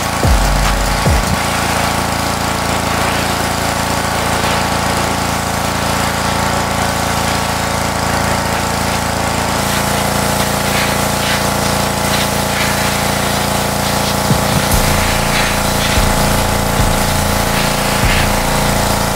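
Pressure washer running steadily while its wand sprays a high-pressure water jet, the motor's drone under the hiss of the spray.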